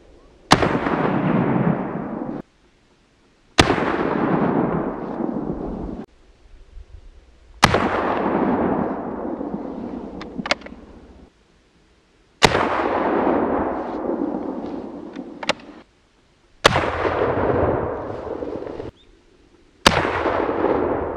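Six rifle shots from a Mosin Nagant 91/30 firing 7.62x54R, each a sharp crack followed by a rolling echo of about two seconds. The early shots are without a muzzle brake, and the last, from prone, has a Howling Raven steel muzzle brake fitted. A few sharp clicks come between shots.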